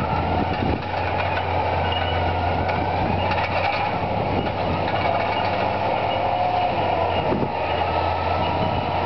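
Caterpillar crawler bulldozer's diesel engine running steadily under load, with the clatter of its steel tracks as it moves and turns through brush. Brief high-pitched tones come and go above the engine.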